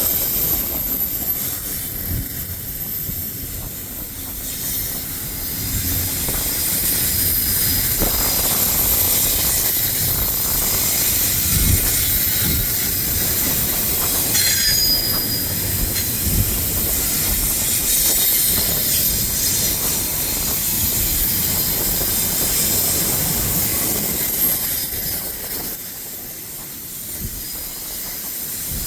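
Freight train cars of an eastbound BNSF train rolling past: a steady rumble and clatter of wheels on the rails, with a high-pitched wheel squeal over it. One brief falling squeal comes about halfway through, and the sound eases a little near the end.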